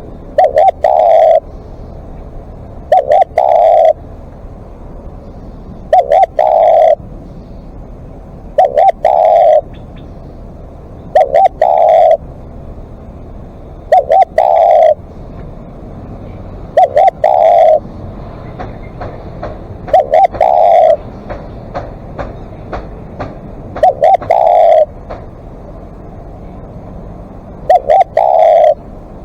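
Spotted dove cooing loudly and close: the same short phrase of a few notes repeated about every two and a half to three seconds.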